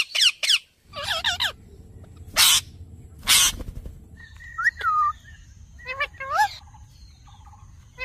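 Rose-ringed (Indian ringneck) parakeets calling: a quick run of short, repeated chattering calls, two loud harsh screeches about two and a half and three and a half seconds in, then a few short rising-and-falling whistled calls.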